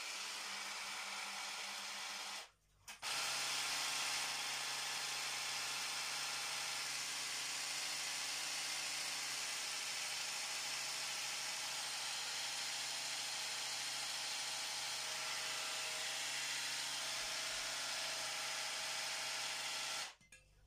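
Electric hand blender with a chopper bowl running, mincing chicken fillet and onion into a paste. The motor runs steadily, stops briefly about two and a half seconds in, then runs on evenly until it cuts off near the end.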